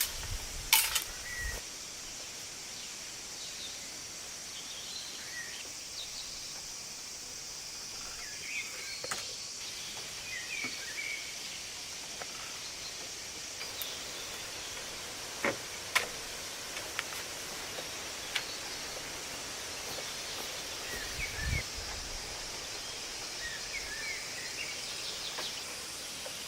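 Forest ambience: a steady high-pitched hiss with scattered short bird chirps, a few sharp clicks or snaps, and a low thump near the end.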